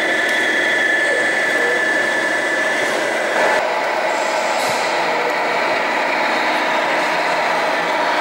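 Radio-controlled scale model trucks running, with a steady high whine and engine-like noise; the whine stops about three and a half seconds in, with a brief louder sound, and a steadier running noise follows.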